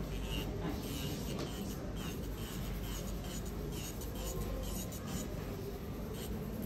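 A nail file being rubbed back and forth across a fingernail, in short scratchy strokes at about three a second, over a steady low hum.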